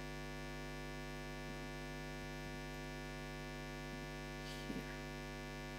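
Steady electrical mains hum with a ladder of evenly spaced overtones, with a faint short sound about three-quarters of the way through.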